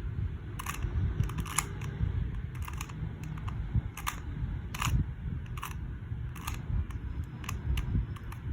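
A QiYi 2x2 cube's plastic layers being turned through an algorithm: an irregular run of sharp clicks, each turn snapping into place.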